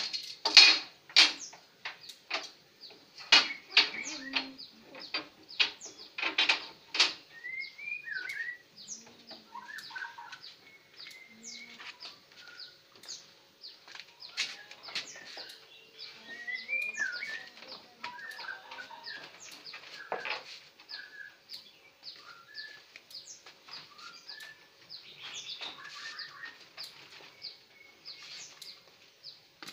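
Sharp knocks and clicks from work on a wooden TV cabinet, most of them in the first several seconds. Small birds chirp on and off through the rest, with occasional lighter clicks.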